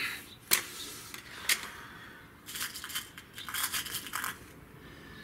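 Two sharp clicks from the break-barrel air rifle as it is handled, then lead pellets clinking against one another in a metal pellet tin as one is picked out, from about two and a half to four seconds in.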